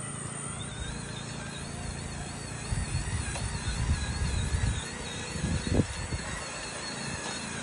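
Hydraulic pump of a 1/8-scale RC Komatsu PC1250 excavator model whining steadily, its pitch wavering up and down under changing load. Low rumbling joins from about three seconds in, with a sharp knock near six seconds.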